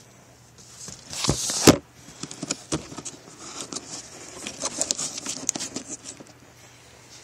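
A cat scrabbling and batting at a fuzzy toy in a cardboard box: paper and cardboard rustling under its paws, with irregular quick taps and scratches. The loudest part is a scraping rush about a second in.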